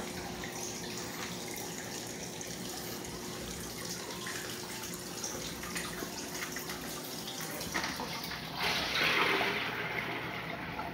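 Steady trickle of water in a 55-gallon saltwater aquarium. About eight and a half seconds in comes a louder rush of water for about a second and a half, as water is poured from a container into the tank.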